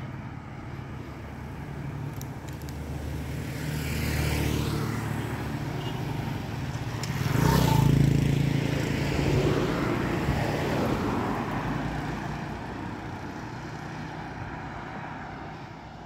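Motor vehicles passing on a road, their engine sound swelling and fading; the loudest passes close by about eight seconds in, its pitch sweeping as it goes by.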